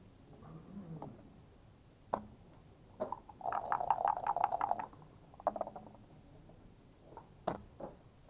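Backgammon checkers and dice clicking on a wooden board: a few single clicks as checkers are set down, and in the middle about a second and a half of fast rattling as dice are shaken in a cup, followed by a short clatter as they land on the board.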